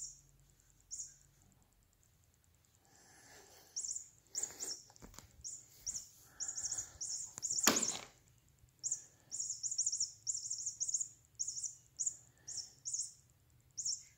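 Rapid runs of short, high-pitched, bird-like chirps, many in quick succession, with one loud sharp knock about eight seconds in.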